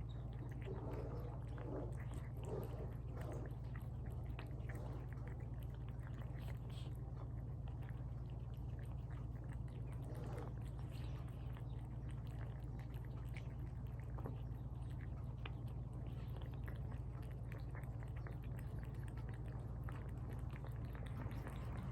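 Cats eating tuna from bowls, close up: a constant run of small wet chewing and lapping clicks, over a steady low hum.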